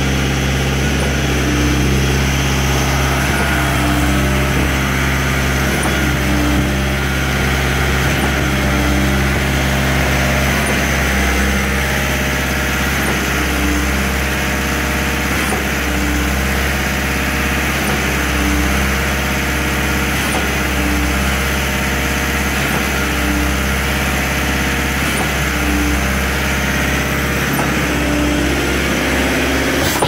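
Truck-mounted concrete pump running steadily while pumping concrete, its engine a constant drone with a regular pulse about every two and a half seconds as the pump cycles its strokes.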